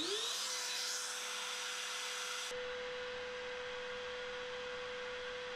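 CNC router spindle motor of a MillRight Carve King 2 switching on and spinning up: its whine rises in pitch for about half a second, then holds a steady high whine as it runs free, before any cutting.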